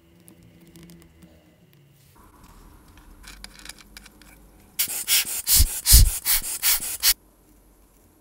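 Rapid rubbing or scrubbing: about ten quick strokes, roughly four a second, starting about five seconds in and lasting some two seconds, after faint handling noises.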